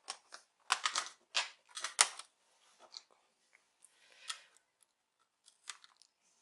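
Hands peeling and pressing small screw-cover stickers onto a laptop's plastic screen bezel: a run of quick rustling, scraping strokes in the first two seconds or so, then scattered light clicks and taps.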